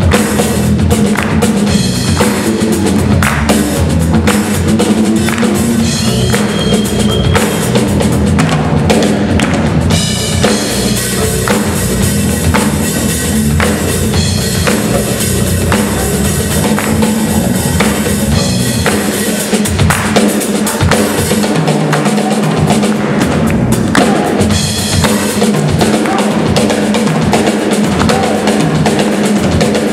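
Live band playing an instrumental groove: drum kit with bass drum and snare, over electric bass. It runs loud and unbroken.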